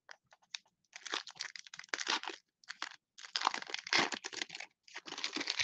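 Foil wrapper of a 2021 Panini Mosaic trading-card pack being torn open and crinkled by hand, in three bursts of crackling.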